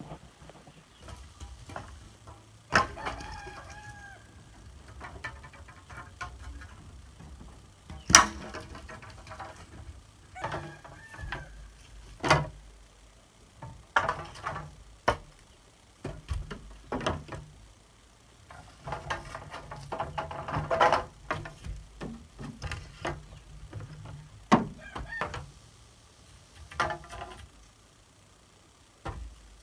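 Chickens clucking and a rooster crowing now and then, with sharp knocks at irregular intervals, the loudest of which stand out above the birds.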